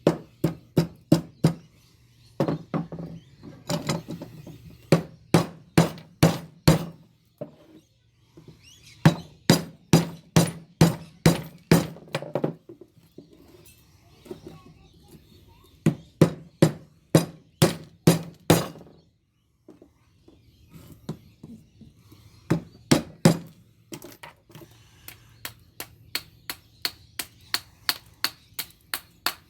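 Hammer blows on a steel light ballast being broken apart for its copper windings, struck in runs of several sharp hits about two or three a second with short pauses between, turning to lighter, quicker taps near the end.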